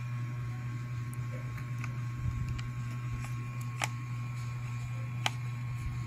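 Scattered small, sharp clicks and ticks of a screwdriver turning the tiny retaining screw that holds an M.2 SSD in a laptop's slot, the loudest near the end, over a steady low hum.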